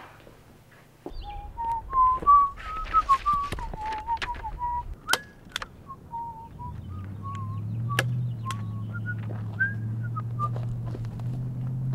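Someone whistling a wandering tune, with a few sharp clicks in between. A steady low rumble comes in about halfway through.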